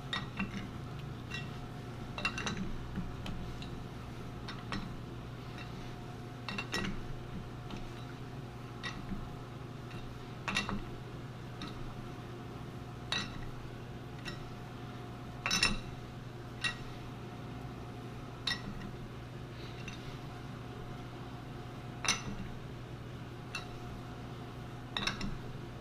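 Sharp metallic clinks at irregular intervals, every second or few, from a chuck key working the jaws of a four-jaw lathe chuck as the chuck is turned by hand to make the part run true. A steady low hum runs underneath.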